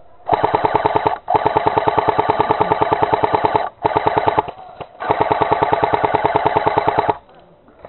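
Airsoft M1919 heavy machine gun replica firing rapid full-auto bursts: four runs of fire, the longest over two seconds, stopping about seven seconds in.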